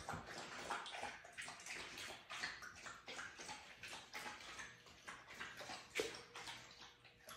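Husky lapping water from a stainless steel bowl: quick repeated wet laps, about three a second, faint.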